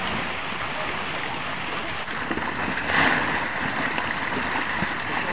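Water splashing and churning from milkfish thrashing in a harvest net, with a louder surge of splashing about three seconds in.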